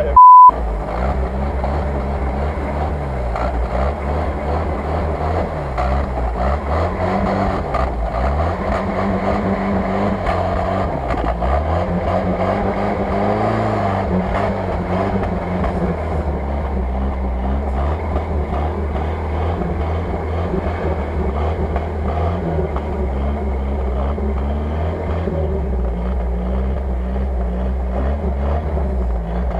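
UAZ-469 engine running under load in deep mud, its revs rising and falling as the four-by-four crawls through the rut. A short, very loud beep sounds just after the start.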